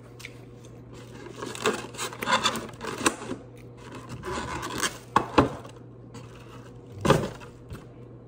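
Eating noises: bites and chewing of a corn on the cob, in irregular bursts of crunching with a few sharp clicks in the second half.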